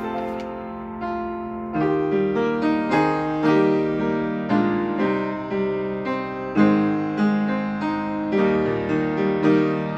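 Upright acoustic piano playing a hymn tune in full chords. A held chord dies away over the first second or so while a page of the music is turned, then the playing picks up again with steady chords.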